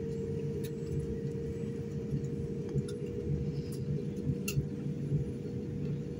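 Steady low rumble of a jet airliner cabin while taxiing, with a steady hum above it and a couple of faint clicks, one near the start and one partway through.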